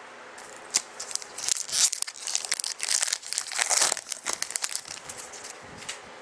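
Trading-card pack wrapper being torn open and crinkled in the hands: a dense run of crackly rustling, loudest in the middle and dying away near the end.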